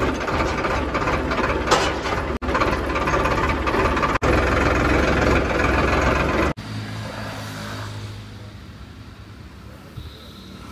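Diesel tractor engine running as the tractor drives along, heard from the driver's seat, with a couple of abrupt cuts. About six and a half seconds in it gives way suddenly to a much quieter steady low hum, with a short high beep near the end.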